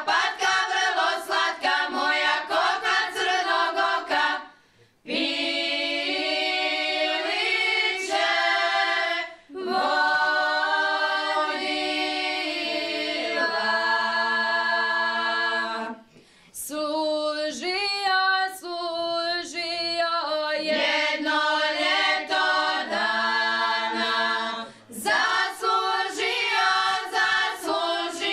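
Women's folk singing group singing a traditional Šokac song a cappella, several voices together in long held phrases. Four short breaks between phrases.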